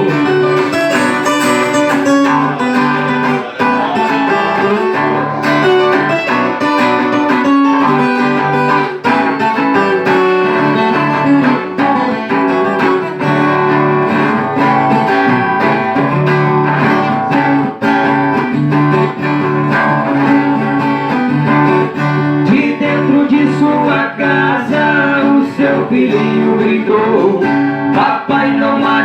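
Violão (acoustic guitar) and viola caipira (Brazilian ten-string guitar) playing an instrumental passage between sung verses, plucked and strummed in a steady rhythm.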